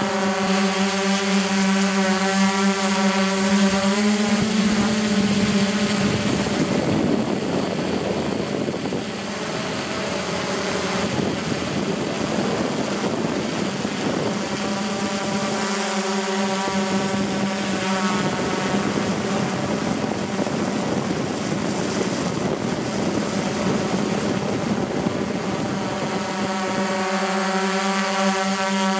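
Multirotor drone's motors and propellers whirring in flight, a steady pitched hum that rises a little about four seconds in. For long stretches in the middle the hum is partly buried under rushing wind noise, then comes back clearly near the end.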